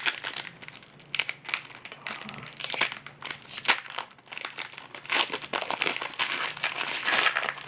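Wrapper of a sealed hockey card pack crinkling and crackling in the hands as it is torn open and pulled apart, in an irregular run of sharp crackles.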